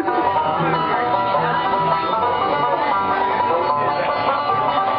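Music with plucked string instruments playing steadily.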